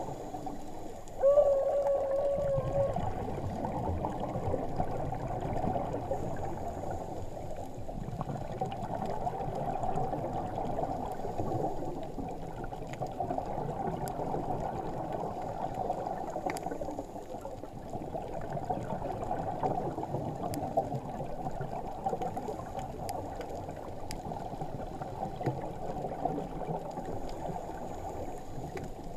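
Muffled underwater ambience picked up through a GoPro Hero3's waterproof housing: a steady low wash of water noise. A short wavering tone sounds about a second in.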